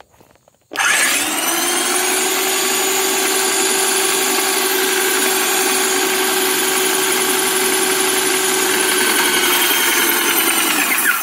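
InoKraft MaXpray M1 airless paint sprayer's electric pump switching on about a second in and running with a loud, steady hum, the gun triggered into a waste pail to prime it. Its pitch sags slightly just before it cuts off near the end.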